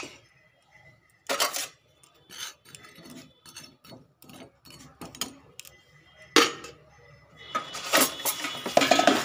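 Metal spoon knocking and scraping against a stainless steel pot of cut potatoes in water, with a few separate sharp clinks, then a denser run of metal clattering near the end.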